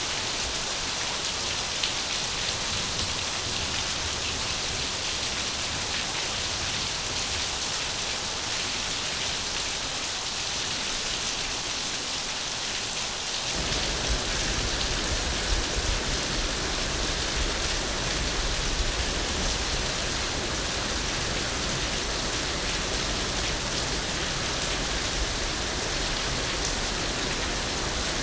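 Steady hiss of falling water, a rain-like sound meant for sleeping. About 13 seconds in it becomes fuller, with more low rumble.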